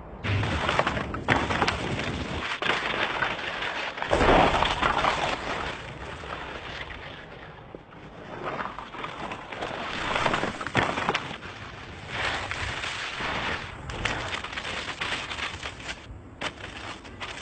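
Loose dirt and gravel hissing and scraping under a person sliding fast down a steep scree slope, mixed with rushing wind on the microphone. It swells and fades, and changes abruptly several times.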